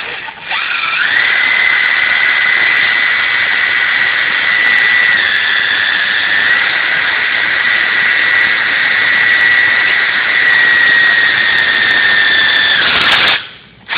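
Power driver with an 8 mm driver bit running continuously, driving a self-drilling tech screw through an insulated hose clip into a small square tube. It makes a steady high whine over a loud hiss and cuts off abruptly near the end, once the screw is seated.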